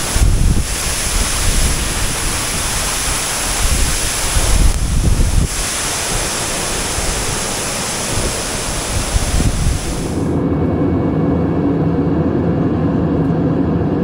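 Waterfall cascading over rocks: a steady rush of falling water, with wind buffeting the microphone in low gusts. About ten seconds in the water sound cuts off abruptly and gives way to a steady sound of held tones.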